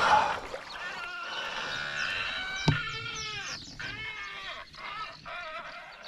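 Taut fishing line creaking and squealing as it is dragged through river weed while a carp is played: a continuous run of wavering, squeaky tones, with a sharp click about two and a half seconds in.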